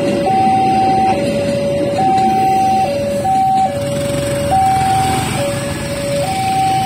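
Railway level-crossing warning alarm sounding a two-tone electronic signal, switching between a higher and a lower note about once a second, the warning that a train is passing. Under it the rumble of the passing train fades about four seconds in, giving way to motorbike engines pulling away as the barrier lifts.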